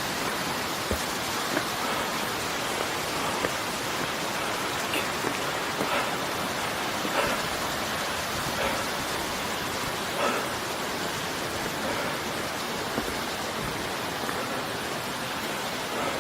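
Steady rush of flowing water, with faint short taps scattered about once a second, likely footsteps on the trail.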